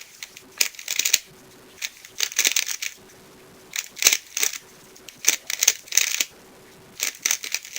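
Dayan Guhong 3x3 speedcube being turned fast by hand: clusters of rapid plastic clacking turns broken by short pauses.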